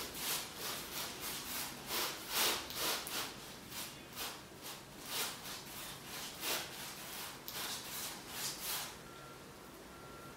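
Brush strokes scrubbing paint onto a canvas, a quick back-and-forth rubbing at about three strokes a second, stopping near the end.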